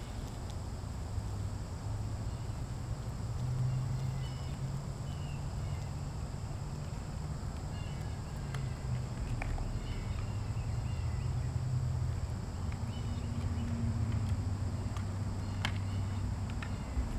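Wind rumbling on the microphone, swelling and easing, with faint bird chirps and a few sharp clicks, the clearest about halfway through and two near the end.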